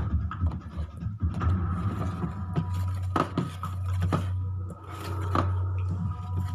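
Television soundtrack without speech: a steady low hum with a faint high tone, and scattered knocks and clicks.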